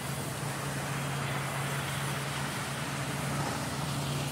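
Band sawmill running: a steady low motor hum under a broad rushing noise from the blade.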